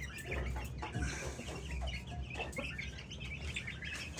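Young Aseel chickens peeping and clucking, many short calls overlapping.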